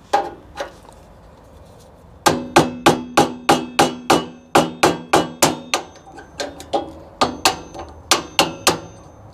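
Small hammer driving a flathead screwdriver into a knockout in the bottom of a metal breaker box: two taps, then a long run of quick strikes, about three a second, with the box ringing under them.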